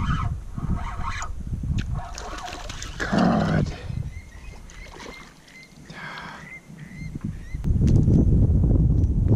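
A small hooked fish thrashing and splashing at the water's surface beside a kayak, loudest about three seconds in, with a run of faint high chirps in the middle. Low rumbling handling noise follows near the end as the fish is lifted aboard.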